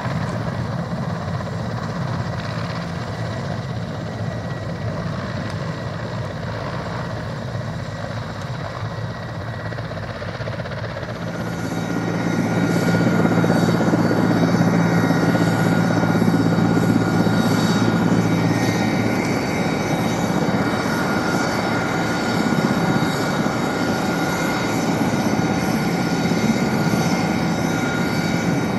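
Mil Mi-8 helicopter's twin turboshaft engines and main rotor running: a low rotor beat under a turbine whine. About eleven seconds in the sound cuts to a louder, closer run with a steadier high whine.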